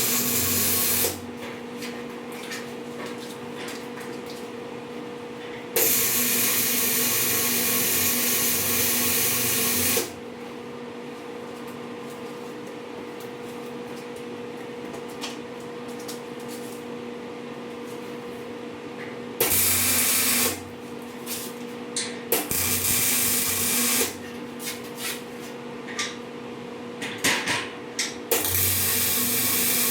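Arc welding on a steel table frame: several bursts of welding-arc crackle, most lasting a few seconds, with short tack-weld blips in between. A steady two-tone machine hum runs underneath.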